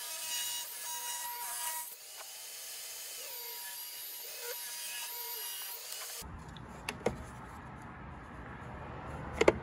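Ridgid table saw cutting through a wooden board, with a steady high whine. About six seconds in this gives way to a low rumble and two sharp clicks as the saw's bevel adjustment knob is handled.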